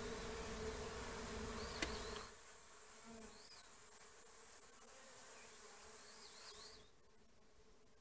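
Honeybees buzzing at a hive entrance: a steady hum of many bees, louder for the first two seconds, then softer, fading further near the end. A few faint high chirps sound over it.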